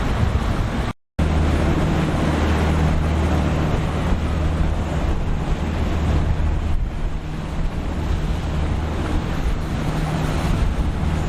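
Boat engine running with a steady low drone over wind and waves breaking. The audio drops out for an instant about a second in.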